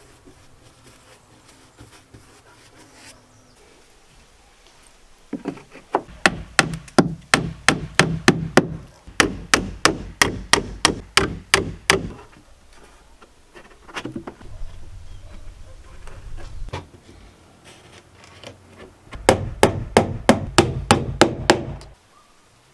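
Hammer driving nails into wooden boards: two runs of quick, even blows, about four a second. The first run lasts about six seconds and the second about three seconds near the end.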